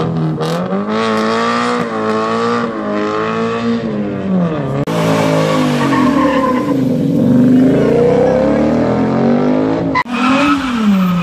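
Cars doing burnouts: an engine held high in the revs with its pitch wavering, tyres spinning and squealing. About five seconds in the sound breaks off and a second car does the same, its revs dipping and then climbing again, with another abrupt change near the end.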